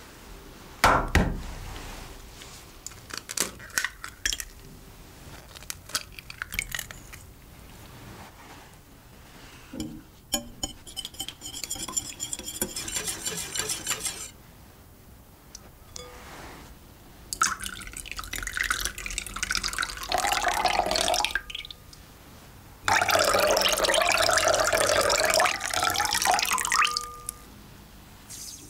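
Eggs cracked on the rim of a glass mixing bowl: a sharp crack about a second in, then smaller clicks of shell. Next, a wire whisk beats the eggs against the glass with a quick clinking rhythm for a few seconds. Then come two long pours of liquid (milk and water) splashing into the bowl, the second the louder.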